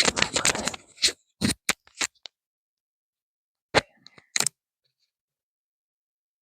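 Metal clicking and rattling of an NRG steering wheel quick release being worked by hand: a rattly scraping flurry of clicks, several sharp clicks, then after a pause two more sharp clicks.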